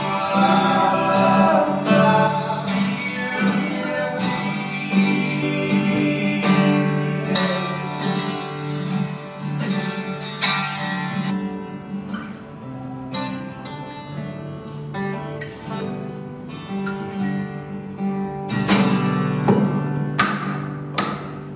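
Acoustic guitar being strummed, with a man singing along over it.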